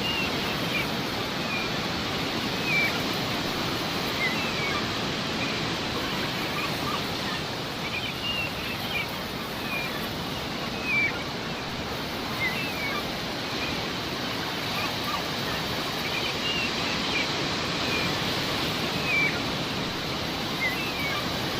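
Sea waves washing steadily, with seagulls giving many short calls over them.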